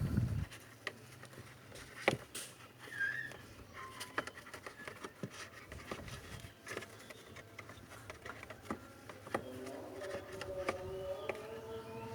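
Light scattered clicks and rustling of a car's cabin AC filter being handled and pushed into its plastic filter housing. From about nine seconds in, a faint steady hum of several tones joins.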